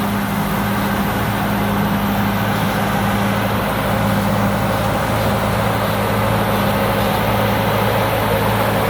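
Thai Seng 'Super Jiw' combine harvester with a four-cylinder turbo engine, running steadily: an even drone at a constant pitch, with no change in engine speed.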